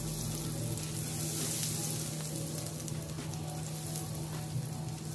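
Asafoetida powder frying in hot ghee in a nonstick pan: a steady sizzle.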